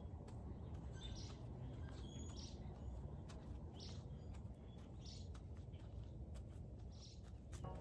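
Wild birds chirping faintly in short calls about a second apart, over a steady low rumble of outdoor background noise.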